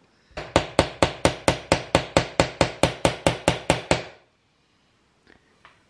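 Small hammer tapping a pin into new wooden beading on an old window sash: about seventeen quick, even taps at four to five a second, stopping about four seconds in.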